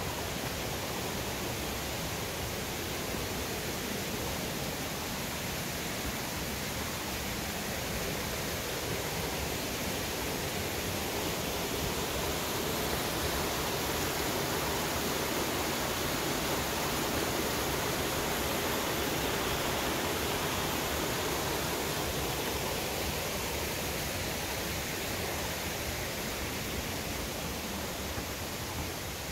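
Steady rushing of a small rocky forest stream and cascade, growing a little louder in the middle and easing off toward the end.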